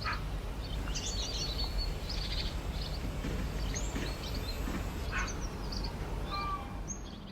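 Birds chirping in short, scattered calls over a steady low rumble of outdoor background noise.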